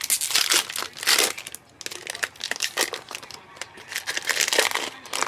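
Foil or plastic wrapper of a trading-card pack crinkling as it is handled and torn open, in irregular bursts, loudest in the first second or so and again near the end.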